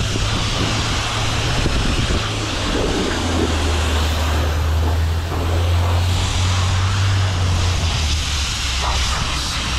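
Self-service car wash high-pressure wand spraying water onto the car: a steady hiss over a low hum that grows louder for a few seconds in the middle.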